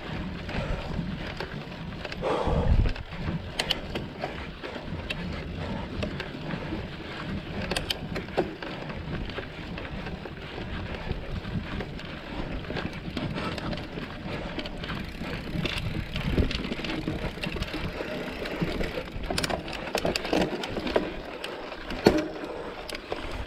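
Mountain bike ridden over a rough trail: steady tyre noise on dirt with frequent rattles and clicks. A louder knock comes about two and a half seconds in and again near the end.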